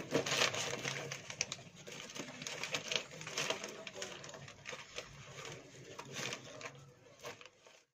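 Newspaper wrapping rustling and crinkling as it is handled and bound with string, with irregular small crackles.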